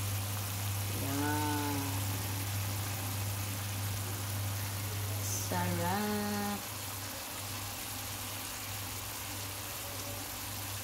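Sauce simmering in a pan around a whole sea bream: a steady hiss of bubbling over a low hum. Two short voice-like sounds come through, about a second in and again about six seconds in.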